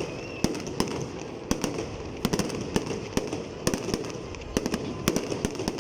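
Fireworks going off in a rapid, irregular series of sharp bangs and pops over a steady low crackling rumble from the display.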